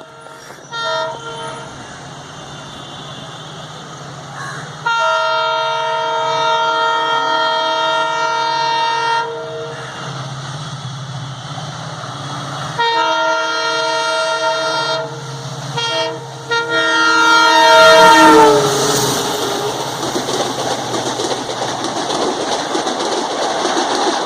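WDG4D diesel locomotive's multi-tone horn honking repeatedly: short toots, then long blasts of about four and two seconds, over the low hum of the engine. A final blast about three-quarters of the way in drops in pitch as the locomotive passes. The clatter of the coaches rolling by follows.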